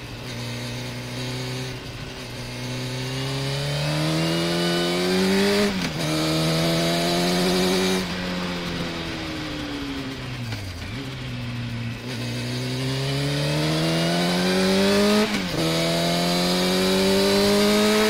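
Sport motorcycle engine accelerating hard, its pitch climbing and then dropping sharply at an upshift about six seconds in and again about fifteen seconds in. Between those, it falls away slowly for a few seconds as the bike slows, then climbs again.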